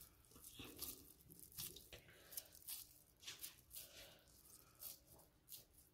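Faint wet handling sounds of raw minced chicken mixture being squeezed and shaped by hand, a few short irregular sounds each second.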